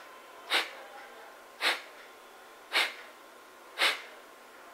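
Kapalbhati breathing: four short, forceful exhalations pushed out through the nose, about one a second, with the passive in-breath not heard between them. This is the intermediate rhythm of one forceful exhale per second.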